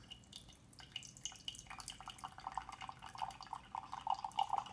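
Coffee being poured from a stainless-steel French press into a mug. A few faint drips come first, then a steady splashing pouring stream begins a little under two seconds in.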